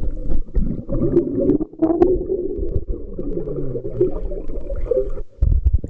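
Muffled underwater sound picked up by a waterproof camcorder submerged in a pool: bubbling and water churning with scattered small clicks, and a short louder rush just before the end.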